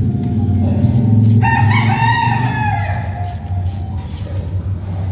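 A rooster crows once, starting about a second and a half in and lasting about a second and a half, over a steady low mechanical drone.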